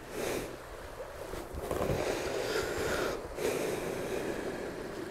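Wind buffeting the microphone in uneven gusts, over the rush of a shallow river running over stones.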